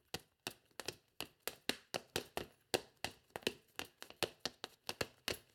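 A quick, uneven series of light taps, about three a second, like tap-dancing steps.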